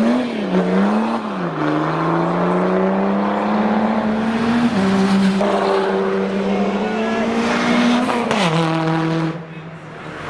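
A tuned car's engine revving: two quick blips of the throttle, then a long climb in pitch as it accelerates away. The pitch steps down briefly about halfway, then falls about eight seconds in as the throttle closes.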